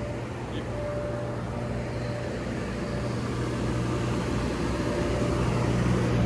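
FMC M10000 30-ton air conditioner unit running on its generator set: a steady mechanical drone with a low hum and fan noise, growing slightly louder.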